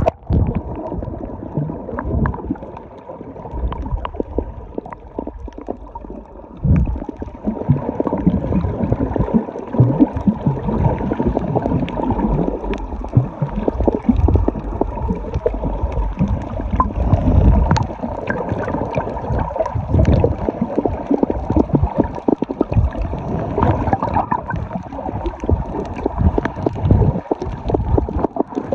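Sea water heard through a camera held underwater: a muffled, fluctuating rumble and gurgling with many scattered clicks and crackles.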